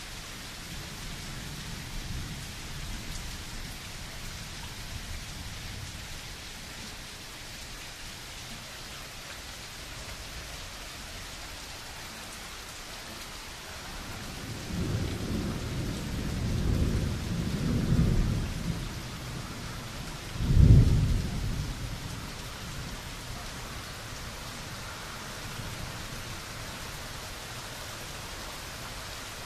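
Heavy rain falling steadily. About halfway through, thunder rumbles low for several seconds, then a sharper, louder thunderclap comes about two-thirds of the way in and dies away within a second or two.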